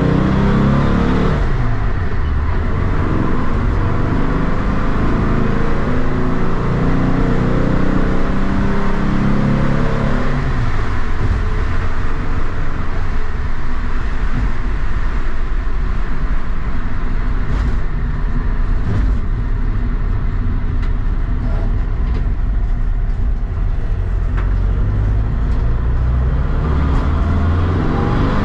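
Air-cooled flat-four engine of a VW Bus, fed by freshly synchronized dual Weber 48 IDA carburetors, pulling the bus down the road, heard from inside the cabin with road noise. Its note drops near the start and climbs again about ten seconds in and near the end as the bus speeds up.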